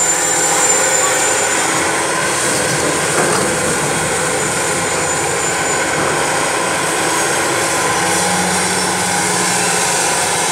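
Tata Hitachi ZX450 excavator's diesel engine running steadily under load while the machine swings and moves its arm.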